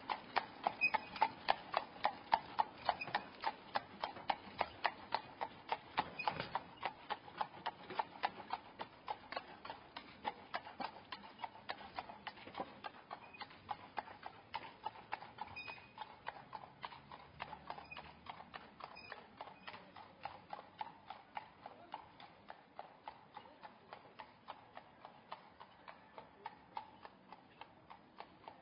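Horse hooves clip-clopping on a stone street as a horse-drawn cart passes, with the rumble of the cart's wheels on the stones. The steady strikes are loudest in the first few seconds and fade gradually as the cart moves away.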